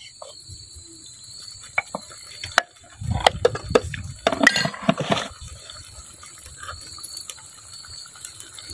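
Potato curry in a clay pot over a wood fire: a wooden ladle stirring at first, then about three seconds in a louder two-second burst of watery sloshing and knocking, with scattered sharp clicks. Crickets trill steadily behind it.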